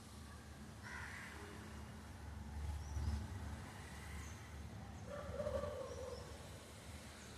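Crow cawing: a short call about a second in and a longer, louder one around five seconds. A low rumble near three seconds.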